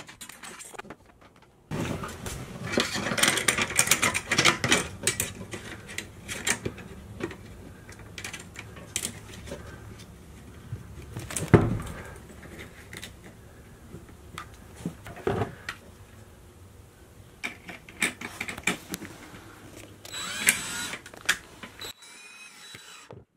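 Cordless driver unscrewing the worm-drive clamp ring at the base of a VacuFlush toilet, with irregular clicking and metal clatter as the band is loosened and handled. One sharp knock comes near the middle.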